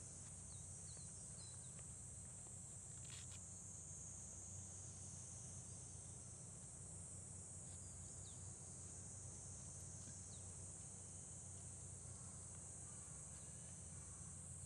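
Faint, steady, high-pitched insect chirring, with a few faint chirps here and there.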